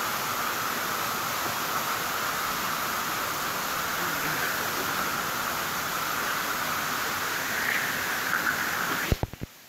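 Steady rushing of a waterfall and floodwater running into the mine tunnel. A few sharp knocks come about nine seconds in, and then the sound cuts out abruptly.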